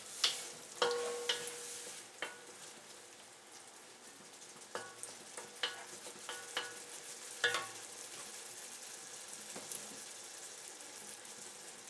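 Chicken hearts, gizzards and onions sizzling in hot oil in a pan, with about nine sharp knocks and scrapes of a utensil against the pan as they are stirred, several ringing briefly.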